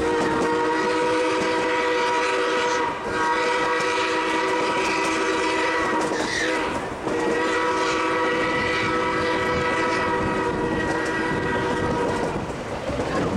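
A narrow-gauge steam locomotive's chime whistle blowing a chord of several steady tones in long blasts, with brief breaks about three and seven seconds in, over the clatter of the train's cars on the rails.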